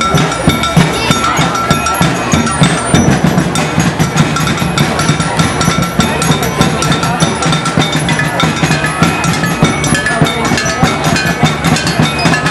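Street-dance percussion music: drums beating a fast, steady rhythm with ringing, bell-like metal tones over it.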